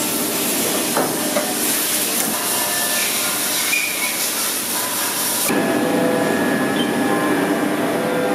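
CNC machining centre milling a welded aluminium bicycle frame: a steady cutting noise with several steady machine tones, under a loud hiss of coolant spray. About five and a half seconds in, the hiss drops off suddenly and the machine runs on with stronger steady tones.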